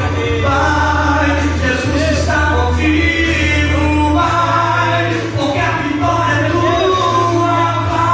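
Gospel worship song: voices singing over a sustained low bass accompaniment.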